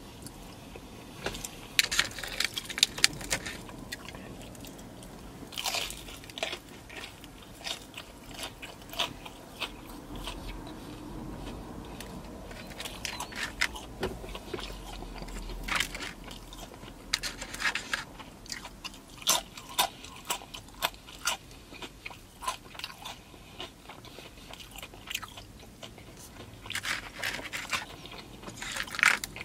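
Close-up crunching bites and chewing of crispy breaded fried chicken, the crunches coming in bursts every few seconds with quieter chewing between.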